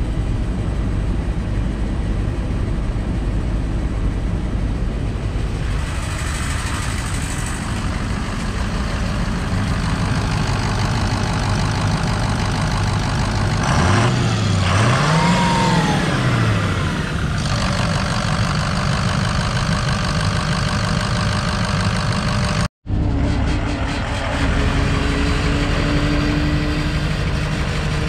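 The 2003 Ford F550 service truck's engine idling steadily. About halfway through it is revved twice in quick succession, the pitch rising and falling each time, then settles back to idle.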